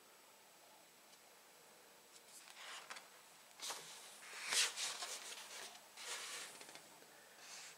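Pages of a large hardcover art book being turned and handled: a series of short paper rustles and slides, the loudest about halfway through.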